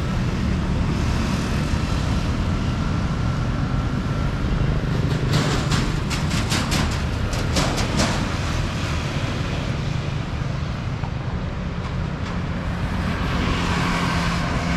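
City street traffic ambience with a steady low rumble, a run of sharp ticks around the middle, and a louder hiss near the end as a vehicle comes close.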